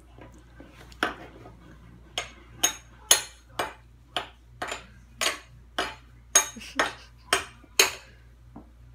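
A toddler banging an object against something hard: a dozen or so sharp knocks and clacks at an uneven pace of about two a second, starting about a second in.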